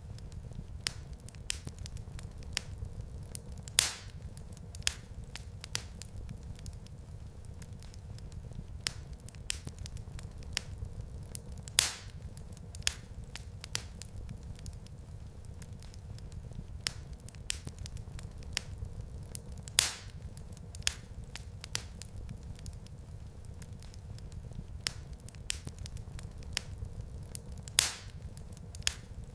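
Wood fire crackling in a fireplace: scattered small crackles and snaps over a low steady background, with a louder pop about every eight seconds.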